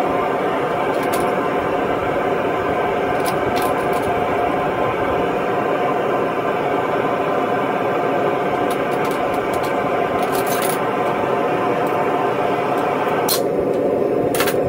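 Devil Forge FB1SB propane melting furnace's burner running steadily, a dense rushing noise at an even level, with a few light metallic clicks and scrapes from tongs worked at the furnace mouth.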